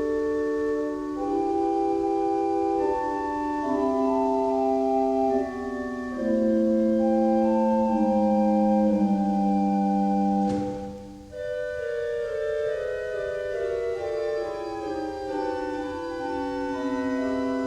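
Organ playing slow, held chords. About ten and a half seconds in, the music breaks off briefly with a click, then resumes with chords stepping downward.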